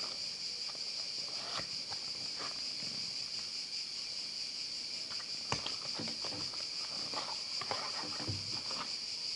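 Faint clicks and rustles of a phone box being opened and handled, over a steady high-pitched chirring drone in the background.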